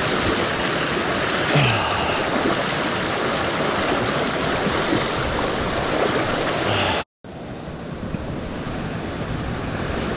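Rushing creek of storm runoff, a steady loud rush of water. About seven seconds in it cuts out for an instant and comes back quieter.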